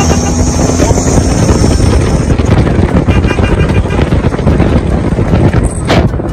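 Wind buffeting the microphone of a moving vehicle, with rumbling road and tyre noise. A brief sharp crackle near the end.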